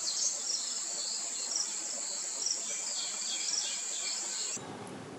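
A steady, high-pitched drone of insects with short, high bird chirps scattered over it; both stop abruptly near the end.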